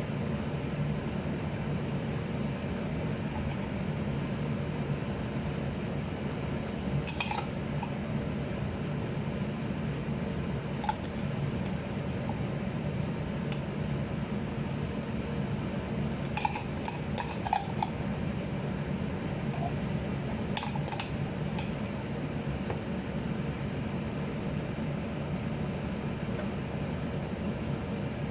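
A metal spoon scooping corn out of a tin can and onto a salad, clinking now and then against the can and the bowl, with a short run of clinks a little past the middle. A steady low hum runs underneath.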